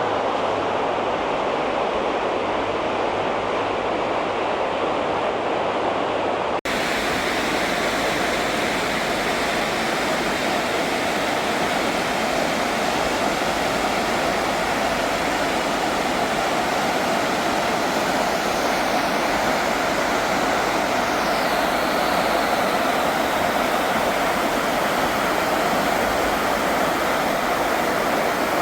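Stream water rushing steadily, with a brief break about six and a half seconds in.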